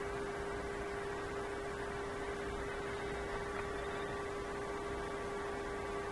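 A steady hum at one pitch over a faint even hiss, with no clicks or handling sounds standing out.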